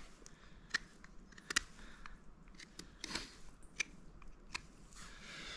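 Knife whittling a small beech stick into a tent peg: irregular sharp clicks and short scraping cuts of the blade on the wood, with a longer shaving stroke about three seconds in.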